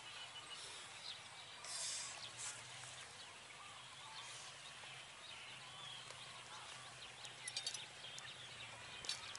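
Faint outdoor ambience with small birds chirping. There is a brief rustle about two seconds in and a few light clicks and taps near the end as the cut watermelon is handled on a woven mat.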